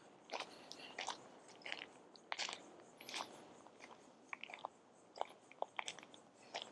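Faint footsteps crunching on a trail: soft, irregular crunches about one every half second to second.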